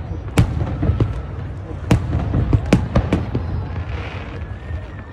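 Aerial fireworks going off: a string of sharp bangs over a continuous crackle and low rumble, with a thin high whistle coming in near the end.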